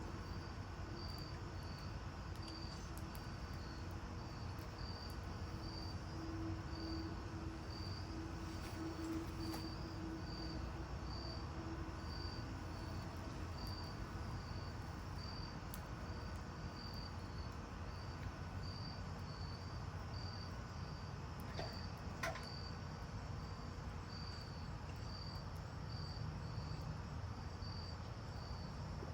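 A cricket chirping steadily, a short high chirp about one and a half times a second, over a low background rumble.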